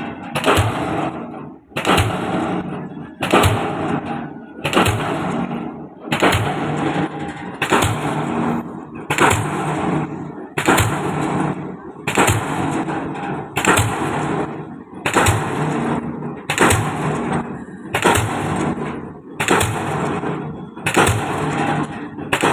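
DD-25 diesel pile hammer driving a concrete pile, one heavy blow about every one and a half seconds in a steady rhythm. Each blow is a sharp bang followed by a short rattling decay.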